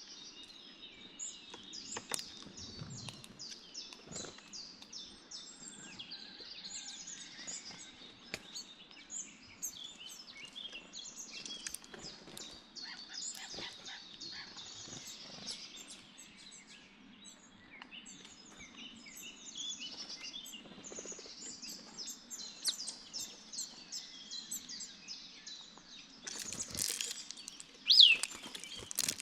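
Many songbirds chirping and trilling at once in a busy outdoor chorus, with scattered faint clicks. Near the end one bird gives a louder high whistle that rises and falls.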